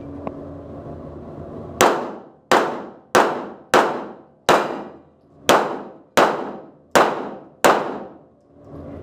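Nine 9x19 mm shots from an STI Edge pistol, fired in quick succession about two thirds of a second apart with a slightly longer pause after the fifth shot. Each shot rings out with a long echo in the enclosed hall.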